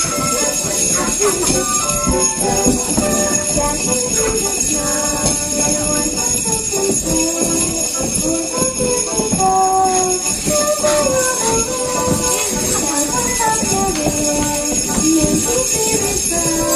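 A group of sleigh bells shaken together, jingling steadily along with a melody.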